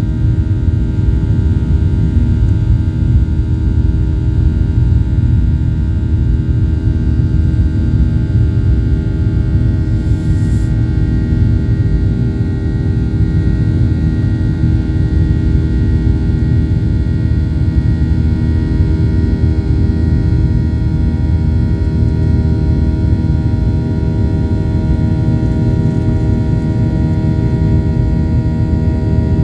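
Airliner's engines heard from inside the cabin during the climb after take-off: a steady low roar with several constant hum tones above it.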